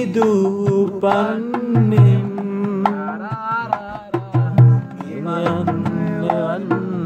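Two men singing a song together to acoustic guitar accompaniment. Deep drum-like thumps fall about two seconds in and again near the middle, with sharp percussive strokes between them.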